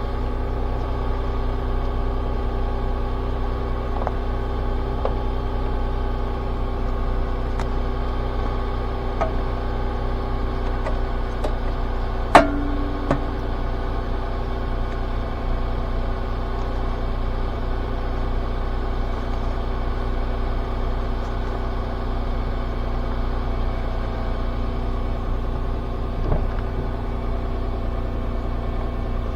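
Car engine idling steadily just after starting, with a sharp click about twelve seconds in and a few faint ticks.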